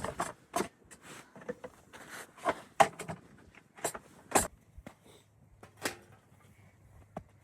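A run of irregular sharp clicks and knocks, the loudest about three and four and a half seconds in, stopping about six seconds in.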